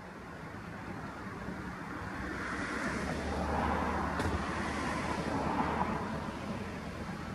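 A motor vehicle passing by: a low engine hum and rushing noise swell up about three seconds in and fade again near the end.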